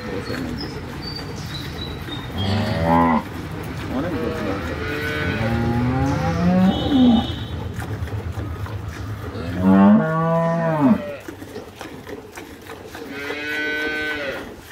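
Cows mooing: four drawn-out moos, one about three seconds in, a longer one from about four to seven seconds, one around ten seconds and one near the end.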